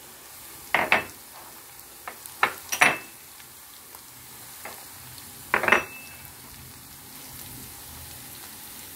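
Sliced onions and garlic sizzling gently in oil in a stainless steel frying pan, with sharp ringing clinks against the pan about one second in, twice more around three seconds, and once near six seconds.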